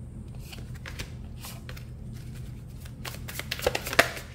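A deck of oracle cards shuffled by hand, the cards sliding and slapping together. A quick flurry of card flicks comes near the end as cards are pulled from the deck.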